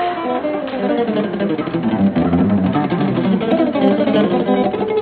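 Archtop guitar played in a jazz style: a busy stream of short picked notes. The sound is dull, as on an old film soundtrack.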